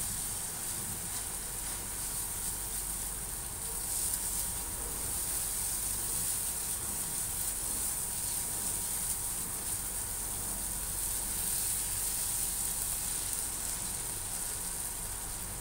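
Corned beef frying in a nonstick pan, a steady sizzle as it is stirred with a spatula, its last moisture cooking off as the meat dries and toasts.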